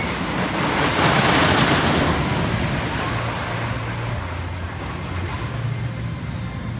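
Thunder Run, a Dinn Corporation wooden roller coaster: its train rumbles along the wooden track and structure. The roar swells to a peak a second or two in and then fades as the train runs on.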